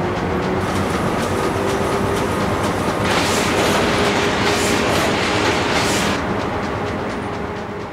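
Web printing press running at speed: a dense, rhythmic clatter of rollers and paper web. A brighter hissing rush swells about three seconds in and eases off after about six seconds, and the sound fades toward the end.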